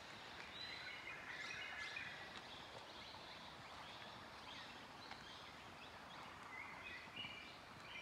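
Several wild forest birds chirping and calling faintly, with short chirps and quick trilled phrases coming in a cluster near the start and again near the end, over a soft steady hiss of forest ambience.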